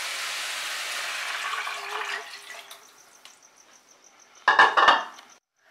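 Vegetables sizzling in hot oil in a kadai. The sizzle dies away two to three seconds in as chicken stock is poured over them. A short clatter comes near the end.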